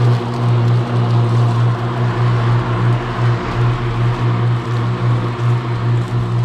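Mean Green battery-electric stand-on mower running with its cutting blades engaged as it mows a leaf-covered grass strip: a steady low hum with a rushing noise above it.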